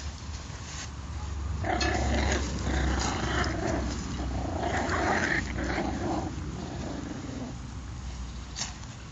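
Patterdale terrier puppies play-growling while tugging together on a toy. Several rasping bouts start about two seconds in and fade out about a second and a half before the end.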